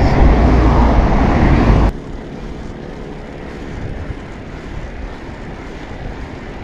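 Traffic and wind noise while riding a bicycle along a busy road: a loud, low rumbling rush that cuts off suddenly about two seconds in, leaving quieter road noise with a faint steady engine hum.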